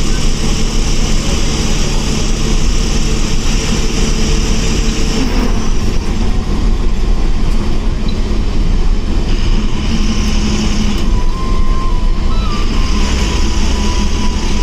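Diesel engine of a KKRTC Eicher bus running, heard from inside the driver's cabin as a steady low rumble with hiss.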